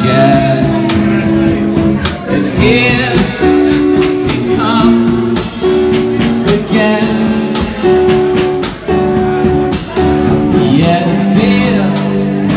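Live music: a man sings with long held notes that waver in pitch, over guitar chords and a steady percussive beat.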